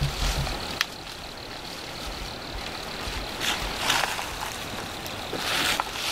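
Leaves and branches rustling as a person pushes through dense, thorny brush, coming in a few louder swells, with a single sharp click just under a second in.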